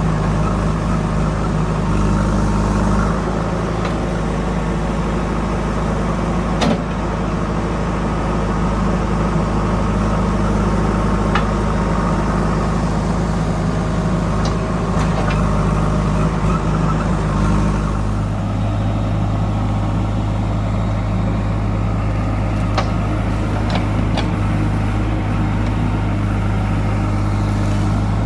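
JCB 3DX backhoe loader's diesel engine running steadily, with a few sharp knocks along the way. About two-thirds of the way through the engine's sound eases to a lower, plainer hum.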